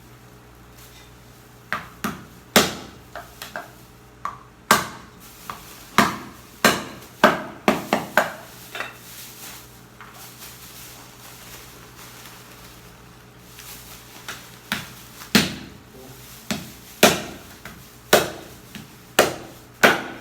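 Knife chopping pork on a chopping board: sharp, uneven chops about one or two a second, in two runs with a pause of a few seconds in the middle.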